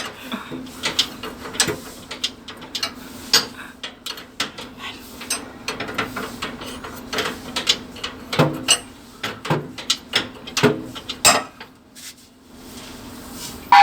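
Hand tools working on metal fittings during an automatic transmission fluid hose replacement: irregular clicks and knocks, with a steady low hum underneath and a loud metallic clank at the very end.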